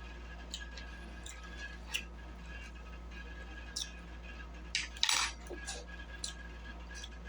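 Sparse small clicks and ticks from eating fried catfish, with a slightly louder rustle about five seconds in, over a steady low hum.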